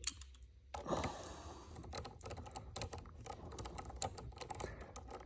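Faint, irregular small clicks and ticks of a T25 Torx key and the screw working against the shift knob and shifter as the screw is started in.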